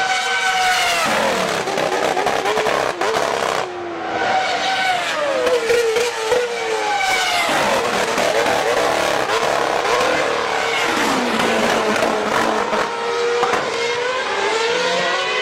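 Formula 1 car engine running at very high revs, its pitch dropping in steps several times as it shifts down and climbing again as it accelerates.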